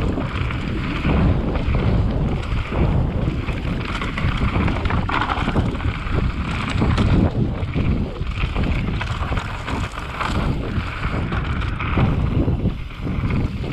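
Wind buffeting the microphone over the rumble and rattle of a mountain bike riding fast down a rough dirt trail, with irregular knocks over bumps.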